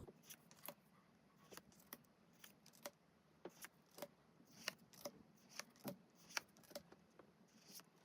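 Pokémon trading cards and packs being handled: a string of faint, irregular clicks and taps.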